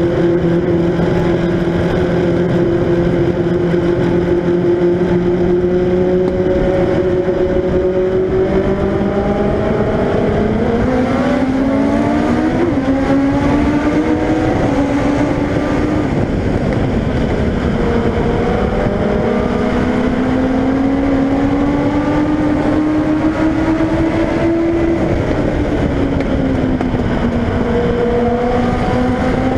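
Onboard sound of a Legend race car's motorcycle-derived engine under way on an oval. It holds a steady pitch at first, climbs about ten seconds in, eases off and climbs again twice as the driver lifts and gets back on the throttle.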